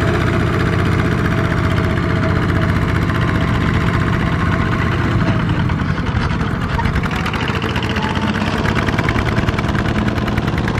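Two-wheel walking tractor's single-cylinder diesel engine running while pulling a trailer loaded with rice sacks. Its note changes about halfway through.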